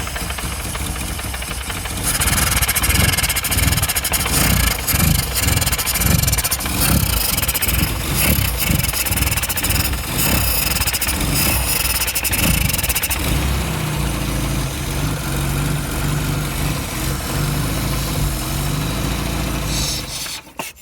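Austin 1100's A-series four-cylinder engine running roughly, with uneven, irregular beats, louder from about two seconds in. It settles into a steadier note about two-thirds of the way through. This is the rough idle and failure to rev that the owner is complaining of.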